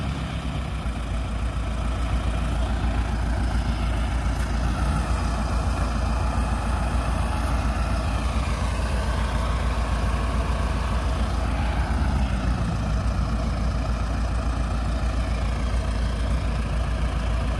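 Diesel engines of combine harvesters running steadily with a deep, low rumble, the engine note shifting slightly in pitch around the middle.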